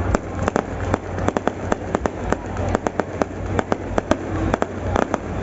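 Fireworks going off in a rapid, irregular string of sharp cracks and pops, several a second.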